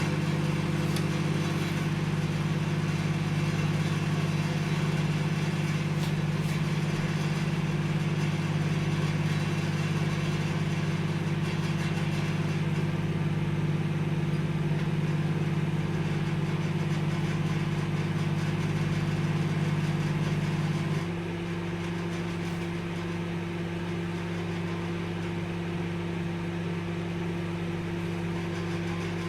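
Microwave oven running: a steady low electrical hum over a whirring haze. About twenty seconds in, the hum drops a step and turns quieter.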